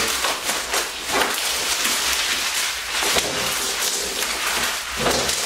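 Bubble wrap and plastic film crinkling and rustling continuously as they are pulled off a packaged race seat, with many small crackles.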